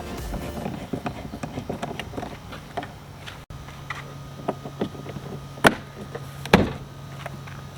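Plastic door trim and clips being pushed and tapped back into place on a Jeep Wrangler door: scattered clicks and knocks, with two louder knocks less than a second apart about two-thirds through, over a steady low hum in the second half.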